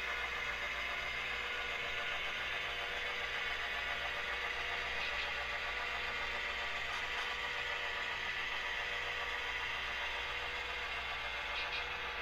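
Diesel locomotive engine sound idling steadily, with a low hum that pulses about once a second.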